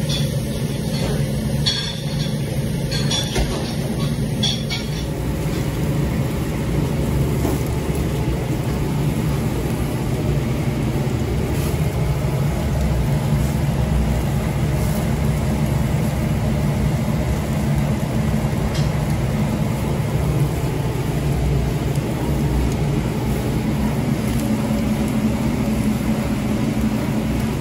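Steady low rumble and hiss of a flame-fired charbroiler under chicken breasts on its grates, with light crackling in the first few seconds.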